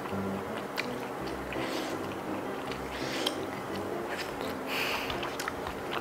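Close-up mouth sounds of someone eating razor clams in sauce: wet chewing and lip smacks, with several short slurps and sucks, the strongest near the end.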